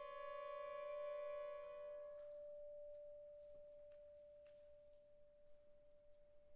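Quiet contemporary chamber music: a few held, pure high tones. The upper one stops about two seconds in, while a single clear tone rings on and slowly fades.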